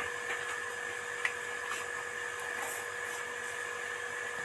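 A steady, even hum with two constant pitches, with a few faint light clicks as a small baking powder container is handled over a steel bowl of rice flour.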